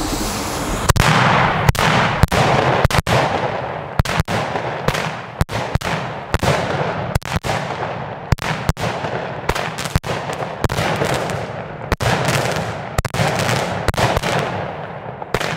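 Klasek 'Mosquito' 16-shot 20 mm firework battery firing: a rapid series of sharp launch pops and bangs, roughly one to two a second, starting about a second in.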